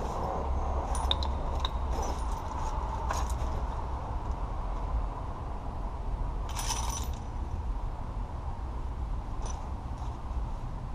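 Metal hand tools clicking and clinking: a socket set and ratchet handled while the right size socket is found, with a louder clink about six and a half seconds in, over a steady low hum.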